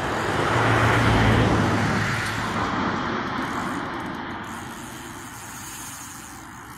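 A vehicle passing by: a broad rushing noise with a low steady hum that swells to its loudest about a second in, then slowly fades away.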